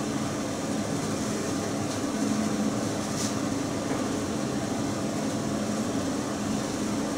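Kitchen extractor hood fan running steadily on its second speed setting, with a steady low hum.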